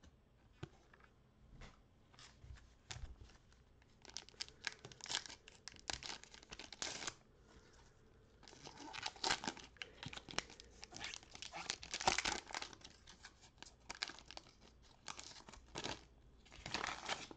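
Foil wrapper of a Donruss football card pack being torn open and crinkled, in several bursts of crinkling as the cards are slid out.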